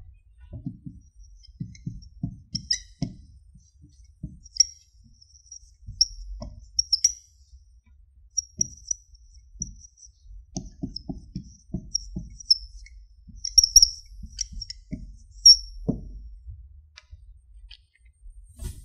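Marker writing on a whiteboard: a run of short high squeaks and soft taps, one per pen stroke, coming in irregular clusters. There is a louder tap about three quarters of the way through.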